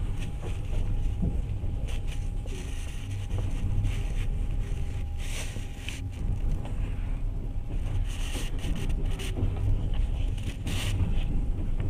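Passenger train running at speed, heard from inside the carriage: a steady low rumble of wheels on the rails, with a few short clatters and rattles scattered through it.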